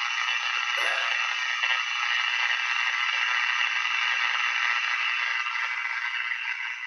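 A 1947 DeWald Model A514 AM table radio playing through its speaker, giving out a steady rushing hiss with no voices.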